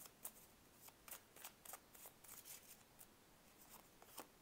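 A tarot deck being shuffled by hand: a faint, irregular run of soft clicks as the cards slide and tap against each other.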